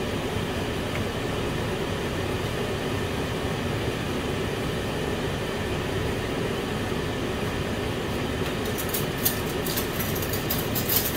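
Steady low rumble of kitchen background noise. Near the end come a few sharp clicks and taps as the wooden spoon knocks against the frying pan and is laid across its rim.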